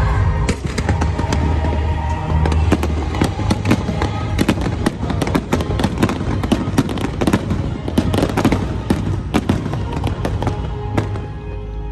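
A rapid barrage of aerial fireworks, many sharp bangs and crackles in quick succession, over a music soundtrack. The bangs thin out near the end.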